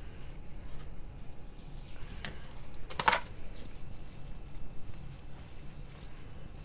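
Rustling and crackling of floral picks being twisted and bundled together by hand, with one louder crackle about three seconds in.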